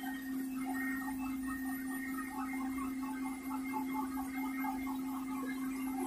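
Handheld hair dryer running steadily at close range, a constant hum with no change in pitch.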